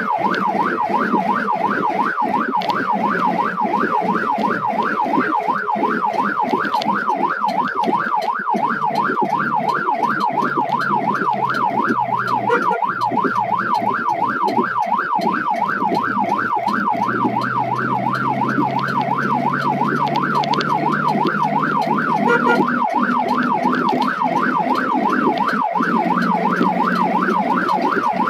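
Ambulance siren sounding a fast up-and-down yelp, several sweeps a second without a break, heard from inside the ambulance's cab over the hum of its engine.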